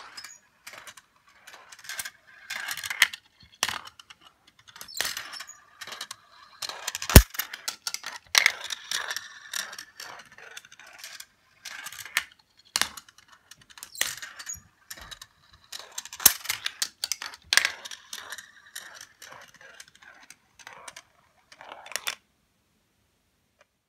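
GraviTrax marble run: marbles rolling along plastic track and metal rails, clicking and clattering against the pieces, with a sharp knock about seven seconds in. The sounds stop near the end.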